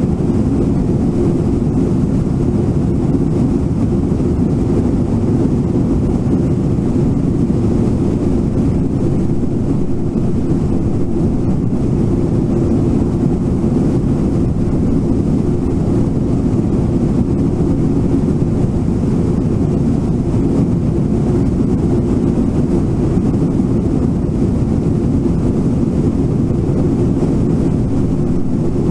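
Waterfall and whitewater rushing steadily: a loud, even low rumble of falling water.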